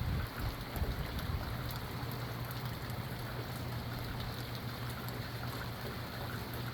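Steady rain falling, with scattered drops ticking, while gusty wind rumbles low on the microphone in the first second or so. A steady low hum runs underneath.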